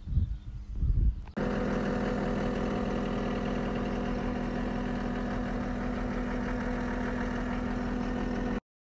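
A second or so of footsteps and handling thumps, then an engine idling steadily at an even pitch for about seven seconds before cutting off abruptly near the end.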